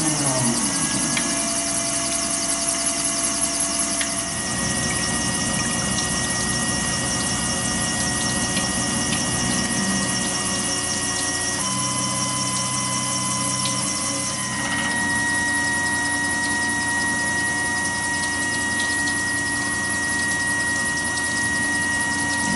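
Tormach 770 CNC mill's spindle and end mill cutting a steel Glock 26 pistol slide under flood coolant: a steady machine whine over the hiss of the coolant spray, its pitch stepping to a new level a few times.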